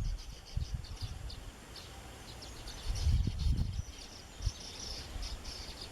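Baya weavers chattering: rapid, uneven runs of short high-pitched notes. Bursts of low rumble on the microphone, loudest about three seconds in.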